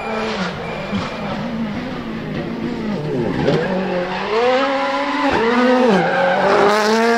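Ford Fiesta WRC rally car's turbocharged four-cylinder engine at high revs. Its note drops sharply about three seconds in as it brakes and shifts down, then climbs again through quick gear changes as it accelerates away.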